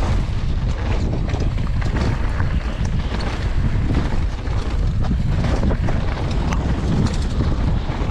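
Wind buffeting an action camera's microphone as a mountain bike rides down a bike-park trail, with the tyres rolling over dirt and small clicks and rattles from the bike.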